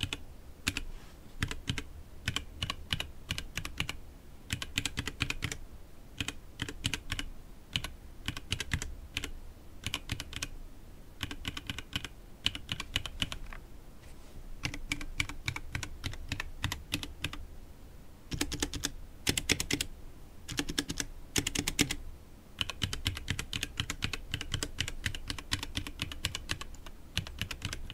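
Mechanical keyboard being typed on: runs of fast key clicks and clacks, with brief pauses between bursts.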